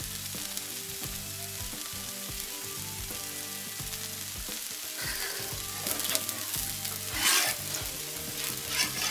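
Oil and vegetables sizzling steadily on a hot Steelmade flat top griddle as oil is squeezed onto the bare steel and spread with a metal spatula. Louder bursts of sizzle come about five to six, seven and nine seconds in, the one near seven seconds the loudest.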